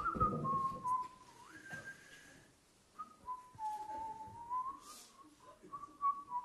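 A man whistling an idle, wandering tune: one thin note that slides up and down, with a short pause about two and a half seconds in.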